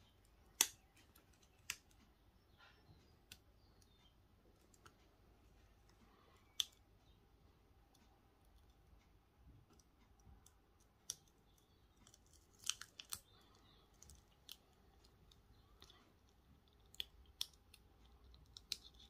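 Adhesive vinyl being weeded with a hooked weeding tool and peeled off its backing on a cutting mat. It makes faint, scattered small clicks and crackles, a dozen or so, with near quiet between them.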